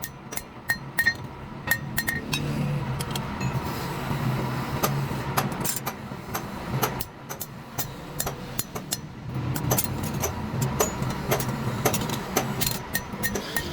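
Irregular metal taps and clinks, some with a short high ring, over a low hum that swells about two seconds in and again about ten seconds in.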